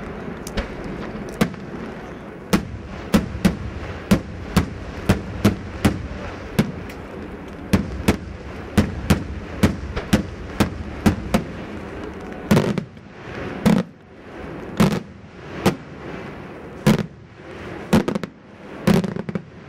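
Daytime aerial fireworks: a rapid string of sharp shell bursts, about two bangs a second, giving way about two-thirds of the way through to fewer, louder bangs that echo.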